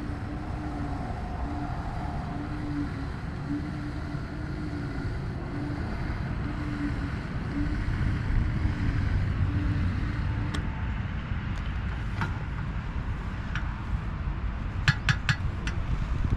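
Steady low rumble of traffic and wind at a gas station, with a low tone pulsing about twice a second for the first ten seconds. From about ten seconds in come a few sharp metallic clicks, bunched near the end, as the pump nozzle and tank cap are handled.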